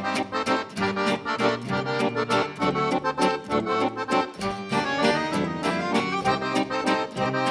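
Accordion-led instrumental introduction to a waltz, played on accordion with guitar and tuba.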